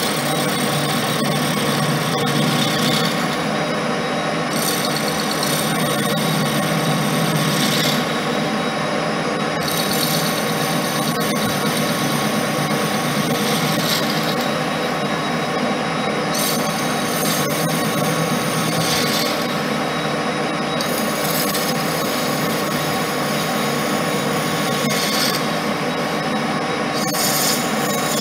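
Colchester lathe running at a steady note while the tool takes light cuts on a plastic sheet disc held only by friction. The hiss of the cut comes and goes in stretches of a few seconds over the steady machine sound.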